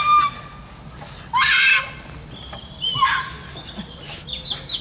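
A person riding a nest swing as it is pushed gives several short high-pitched squeals and shrieks, the loudest about a second and a half in.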